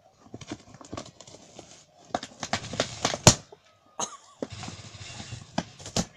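A dog chewing and tearing a cardboard box with its teeth: irregular crunching, ripping cardboard, with one sharp loud crack a little past three seconds in.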